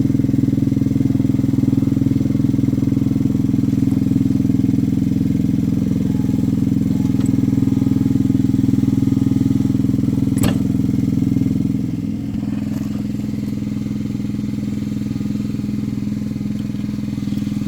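Gasoline engine of a small gas-hydraulic locomotive running steadily. There is one sharp click about ten seconds in, and at about twelve seconds the engine note shifts and drops a little in loudness.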